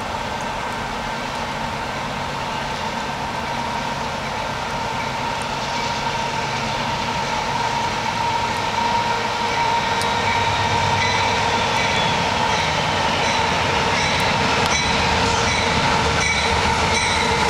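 Canadian Pacific freight train led by two GE AC4400CW diesel locomotives approaching, its rumble growing steadily louder through the second half.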